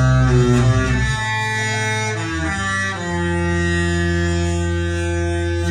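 Disney cruise ship's melody horn playing a tune in deep, held notes: a long note, two shorter notes changing pitch, then a long final note that stops near the end.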